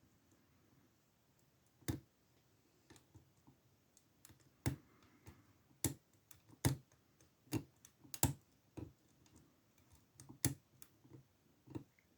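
A lock pick and tension wrench working in the keyway of an old Ruko padlock: sharp metallic clicks at irregular intervals as the pins are probed and set.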